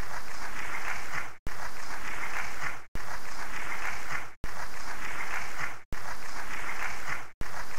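A short burst of applause-like crackling noise looped over and over. It repeats about every one and a half seconds, each repeat fading out and dropping to a moment of silence before starting again abruptly.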